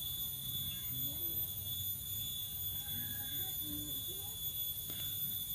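A steady high-pitched whine holding several even tones, over a low rumble, with faint voices in the distance.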